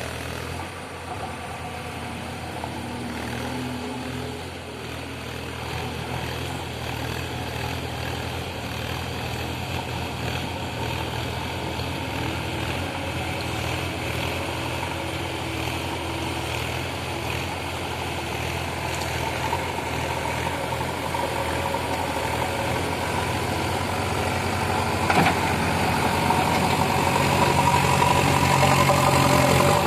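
JCB digging machine's diesel engine running steadily, growing louder over the last several seconds, with one sharp knock about 25 seconds in.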